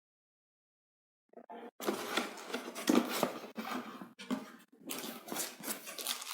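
Packaging being unpacked by hand: cardboard and wrapping rustling, scraping and knocking, starting about a second and a half in, with a sharper knock about three seconds in.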